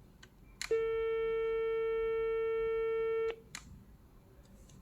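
Dial tone from the ECG-500 corded telephone's hands-free speaker: a button click about half a second in, then one steady, unbroken tone for about two and a half seconds, cut off by another click.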